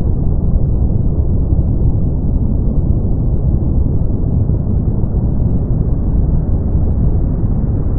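Brown noise: a steady, deep, even rumble with most of its energy in the low end and almost nothing above the upper mids, unchanging throughout.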